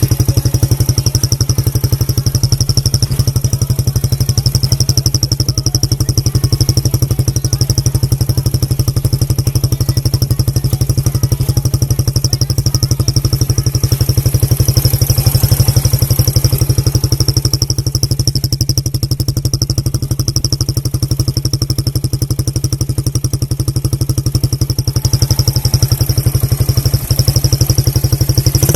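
Suzuki Belang motorcycle engine idling steadily through its standard exhaust chamber. A fake turbo whistle fitted in the exhaust gives a constant high whistle over the engine note.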